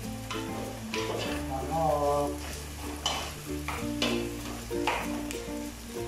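A metal ladle stirring, scraping and knocking against an aluminium stockpot as onion and ginger fry in butter with a steady sizzle, with a handful of sharp clicks of the ladle on the pot. Background music with sustained notes plays underneath.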